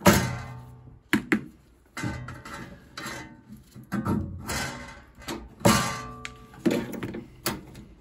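Irregular knocks and clanks on the sheet-metal body of a Hotpoint 1012 spin dryer being worked on by hand, about eight in all, several ringing briefly after the hit; the loudest come right at the start and a little before six seconds in.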